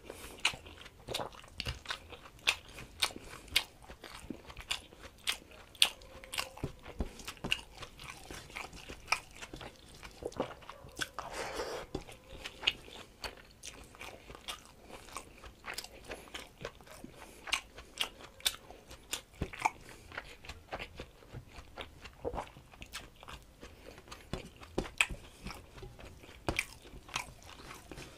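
A man chewing mouthfuls of rice and curry eaten by hand, with many short, sharp, wet mouth clicks and smacks at an irregular pace.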